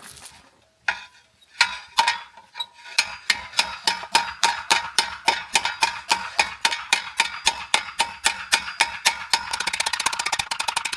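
Hammer blows on steel ringing against an anvil: a few scattered strikes, then a steady rhythm of about three blows a second, quickening to rapid lighter taps near the end.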